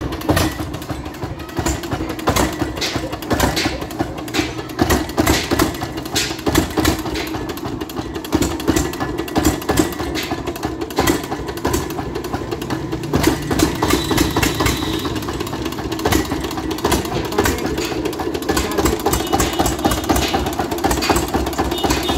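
Eicher 22 hp stationary diesel engine running steadily, its firing heard as a rapid, continuous knocking beat.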